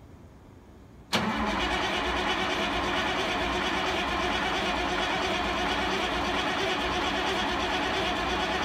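Caterpillar 3406A inline-six diesel in a 1979 Peterbilt 359 starting on its first attempt after ten years of sitting. It comes in suddenly about a second in and keeps running steady and loud.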